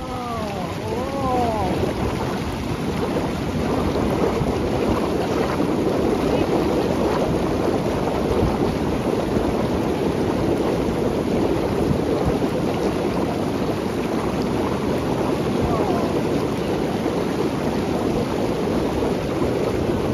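Underwater jets of a hydrotherapy pool station churning and bubbling the water steadily around a person lying on a submerged bench.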